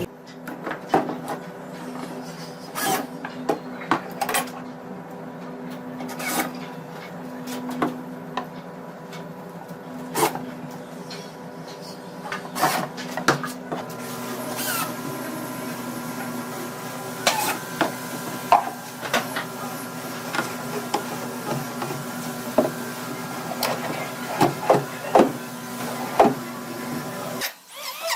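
Wood being handled and worked: irregular knocks, taps and scraping over a steady mechanical hum. The sound cuts off abruptly just before the end.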